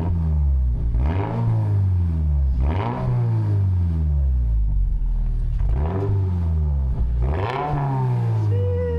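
2025 Toyota GR86's 2.4-litre flat-four, through a Cobb titanium cat-back exhaust, revving hard: the pitch climbs and drops back about four times. A short high falling tone sounds near the end.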